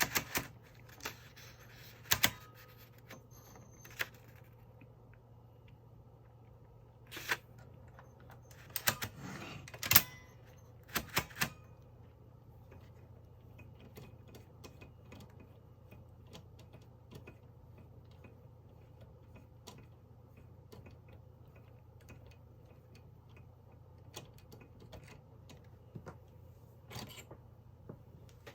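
Mignon No. 4 index typewriter being worked: scattered sharp mechanical clicks and clacks, the loudest about ten seconds in and three in quick succession just after, then only faint light ticks, with one more clear click near the end.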